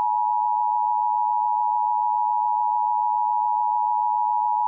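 Emergency alert attention tone: a steady, unwavering high-pitched electronic tone held without a break.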